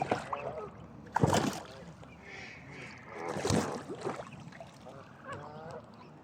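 Geese honking in short calls near the start and again near the end, with two loud splashes in the water about a second in and midway.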